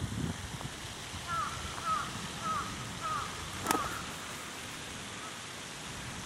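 A crow cawing about five times in quick succession, each caw short and bending downward in pitch, then a few fainter caws. A single sharp click comes partway through the series.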